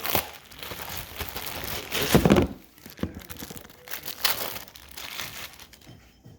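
Packaging crinkling and rustling as it is handled and pulled apart, with a louder burst about two seconds in, then fainter rustles.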